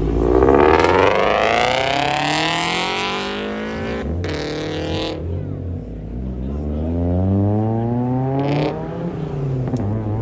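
Performance car engine accelerating hard as the car pulls away, revs climbing steeply, with a sharp break a little after four seconds in like a gear change before climbing again. A second rising run of revs follows in the second half over a steady lower engine note.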